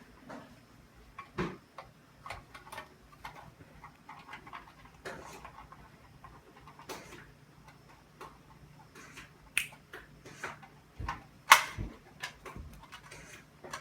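Irregular clicks and knocks of fire alarm pull stations being handled and opened, with the loudest knock about eleven and a half seconds in.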